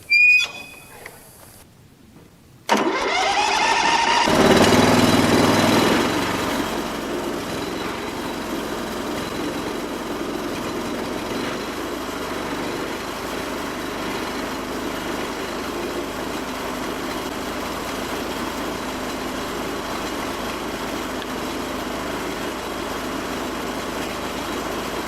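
Band sawmill engine starting about three seconds in, rising quickly in pitch as it revs up, then running steadily.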